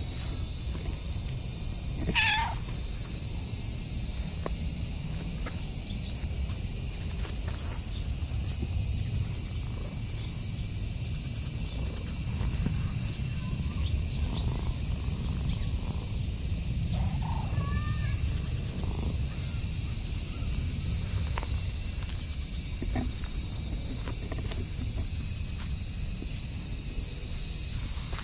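Orange tabby cat giving a short meow about two seconds in and a softer one around two-thirds of the way through, over a steady high drone of insects and a low rumble.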